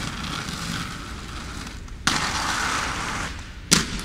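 Inline skate wheels rolling and scraping over stone paving, with a louder scrape starting suddenly about two seconds in and one sharp clack near the end, the loudest sound.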